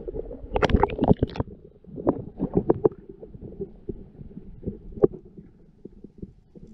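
Muffled gurgling and knocking of creek water heard by a camera held underwater, with a cluster of louder splashes and knocks about a second in and scattered dull knocks after.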